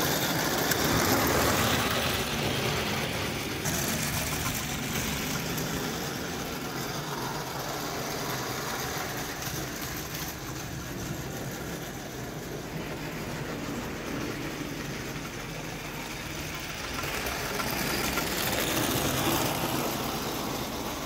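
Bing 0-gauge live-steam toy locomotive with an oscillating cylinder running along tinplate track with its coaches: a steady mechanical running noise that grows louder near the end as the train comes close.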